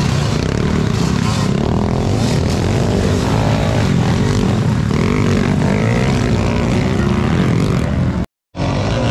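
Several motocross dirt bike engines revving up and down as the bikes ride through a corner one after another. The sound cuts out completely for a moment about eight seconds in.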